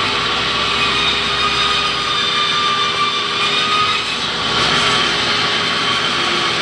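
Large sawmill band saw running and ripping lengthwise through a hardwood log: a loud, steady whine over a constant hum.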